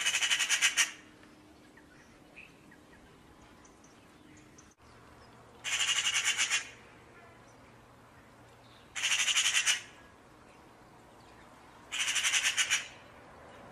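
Eurasian magpie chattering: four short, harsh rattling bursts, each under a second long, a few seconds apart.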